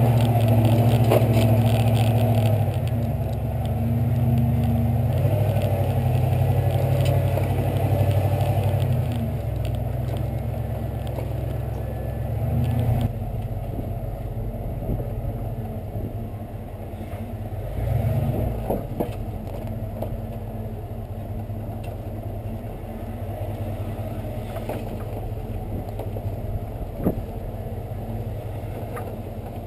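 1992 Ford F150's V8 engine running as the truck crawls along a rough trail. It pulls harder for the first dozen seconds, then eases off to a lower, quieter run, with a brief surge and a couple of sharp knocks from the truck later on.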